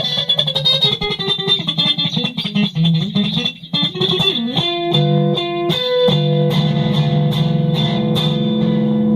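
Solo guitar improvisation: a quick run of picked notes, a bent note about four and a half seconds in, then a few held notes left ringing.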